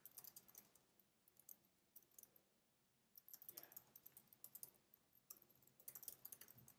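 Faint computer keyboard typing: short runs of soft key clicks with near silence between them.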